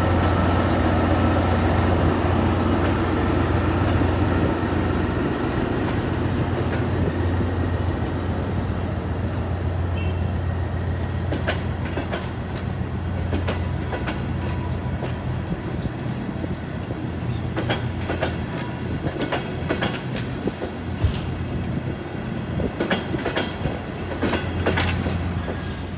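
DR1A diesel multiple unit moving slowly past. The steady drone of its diesel engine fades over the first half, leaving irregular clicks and clunks of its wheels over the rail joints.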